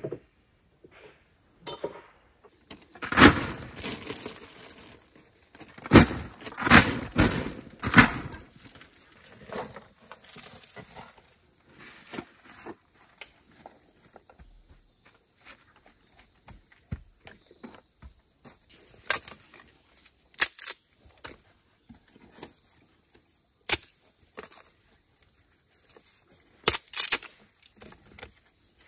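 Two stretches of rustling and scraping, then scattered sharp clicks and knocks, over a steady high-pitched insect trill.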